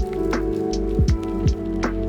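Lo-fi background music: a steady beat of low, pitch-dropping kick drums and crisp hi-hat ticks under sustained chords.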